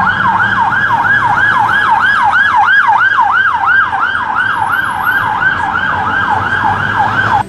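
Police van siren in a fast yelp, its pitch rising and falling about three times a second over a low traffic rumble. It cuts off suddenly near the end.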